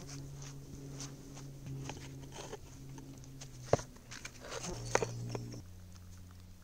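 Stones knocking and scraping against each other as rocks are set in place to form a fire-pit ring. One sharp clack comes about four seconds in, followed by a short run of knocks a second later.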